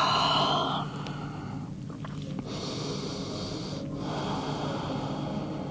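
A woman breathing audibly in and out. The first breath, at the very start, is the loudest; softer breaths follow, with short pauses between them.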